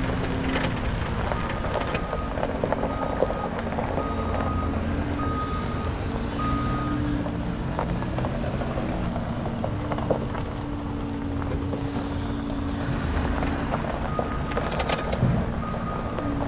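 A vehicle engine running steadily with wind on the microphone, and a backup alarm beeping about once a second for the first few seconds and again near the end.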